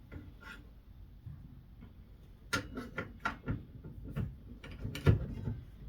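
A run of light clicks and knocks, the loudest about five seconds in: the riving knife being fitted down into its mount on a Skil 10-inch table saw.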